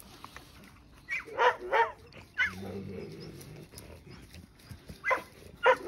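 Wolfdogs yipping and barking in short clusters during a playful greeting between adults and pups. There are quick yips about a second in and again near the end, with a short rising squeak in between.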